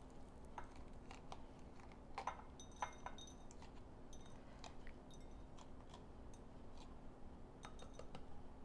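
Faint scattered crackles and clicks of a red bell pepper being de-seeded by hand as the seed core is pulled from the flesh, with a couple of light clinks on a glass bowl.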